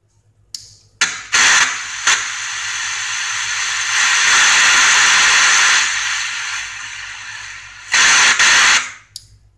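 Static hiss from a Mega KK811 12-band radio receiver, swelling and dropping as the volume is turned up and down, with short louder peaks near the start and again near the end. The volume potentiometer, just cleaned with contact spray, now controls the level normally.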